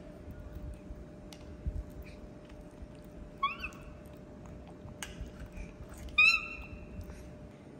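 Baby macaque monkey giving two short, high coo calls, a brief rising one and then a louder one about two and a half seconds later, with faint clicks and thumps of handling between them.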